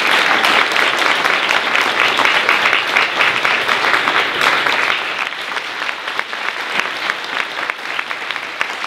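Audience applauding with dense, steady clapping that eases off somewhat after about five seconds.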